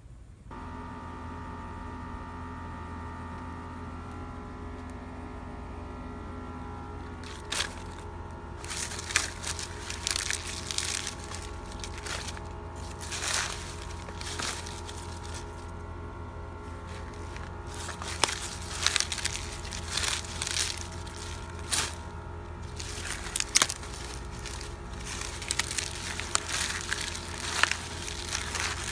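Dry leaves and newspaper crackling and crumpling in irregular bursts from about seven seconds in, as they are packed into a small metal compost bucket, over steady background music.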